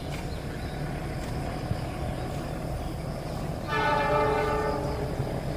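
Diesel locomotive horn sounding one blast of about a second and a half, a little under four seconds in, several pitched notes at once, over a steady low rumble from the approaching train.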